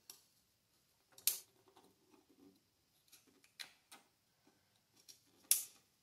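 Pocket knife blade cutting across the grain of a southern yellow pine stick in short, separate strokes, each a brief crisp scrape. The two loudest come about a second in and near the end.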